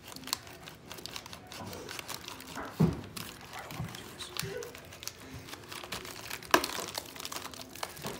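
The plastic film of a sealed military ration accessory packet crinkling and tearing as it is cut open with a pocketknife and pulled apart by hand, in a run of irregular crackles. A louder knock comes about three seconds in, and a sharp snap a little past six seconds.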